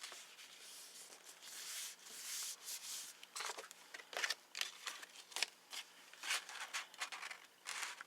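Cardstock being folded and pressed by hand: soft rustling and rubbing swishes of paper with short crisp clicks and taps, busier from about a second and a half in.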